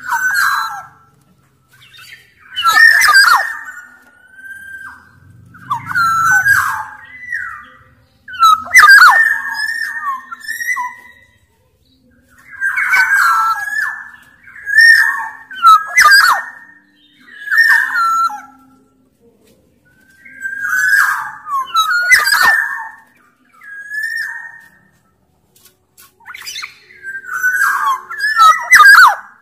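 Black-naped oriole (kepodang) singing a loud run of short, repeated phrases: fluty whistles mixed with harsh notes, one every second or two with short pauses between.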